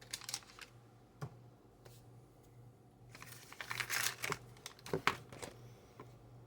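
Packaging crinkling while butter is measured out, with scattered light clicks, a longer stretch of crinkling in the middle and two or three sharp knocks just after it, over a faint steady hum.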